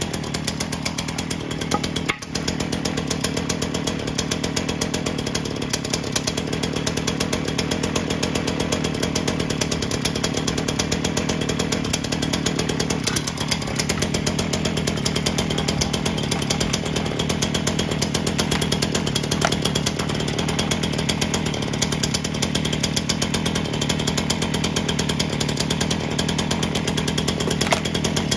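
Ryobi RY3714 37cc two-stroke chainsaw engine running steadily on its own, with one brief dip in level about two seconds in.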